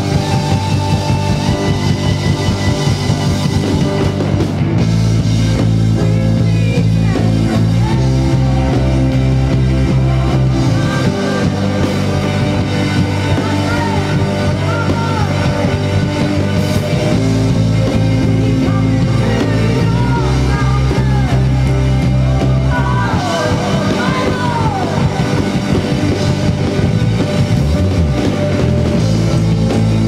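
Live rock-style worship band playing: a drum kit keeping a steady beat under electric guitar, with long held low bass notes.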